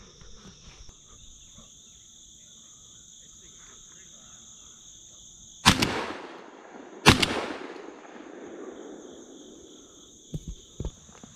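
Shotgun fired twice, about a second and a half apart, each shot a sharp report with a short rolling echo, over a steady high-pitched chorus of insects.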